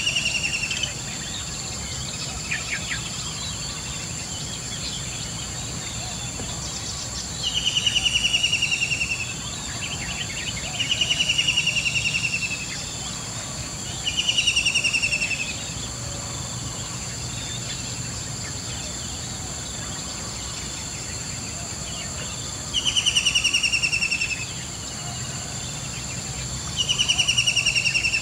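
A bird repeating a loud, pulsed trill that slides down in pitch, each lasting about a second and a half, six times at irregular intervals. A steady high-pitched whine runs underneath.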